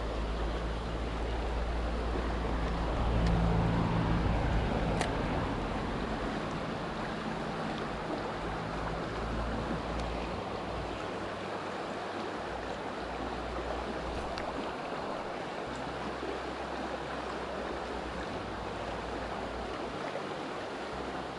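Small river running steadily over stones, an even rushing of water, with a low rumble that swells for a couple of seconds about three seconds in.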